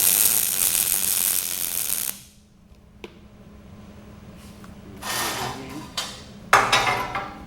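Welding arc crackling and hissing as a tack weld is laid on steel plate, for about two seconds; it stops, then two shorter arc bursts follow near the end. The tack is placed on the far side to pull a leaning plate back to square.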